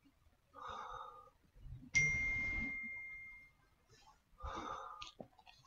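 A single ding about two seconds in: a sharp strike that rings at one clear pitch and fades over about a second and a half. Two short, rougher sounds come about a second before it and two seconds after it.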